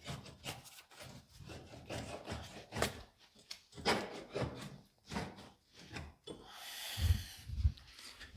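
A steel fish plate being handled and fitted against the trencher's steel frame: irregular scrapes and knocks of metal on metal, then a longer rasping scrape with two dull thumps near the end.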